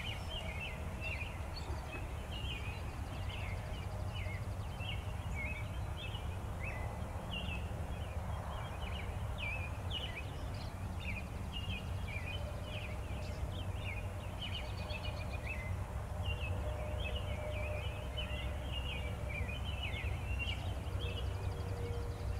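Outdoor ambience of many small birds chirping and calling in short, quick notes throughout, over a steady low rumble.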